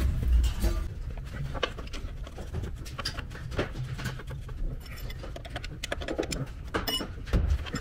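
Small clicks, scrapes and rattles of a steel clutch cable and mechanics' wire being handled and twisted together by hand.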